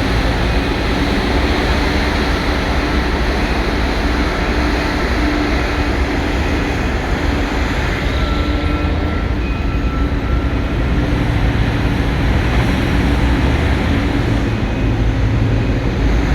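Large hydraulic mining excavator running, a steady loud drone of its diesel engine and machinery with a faint held hum.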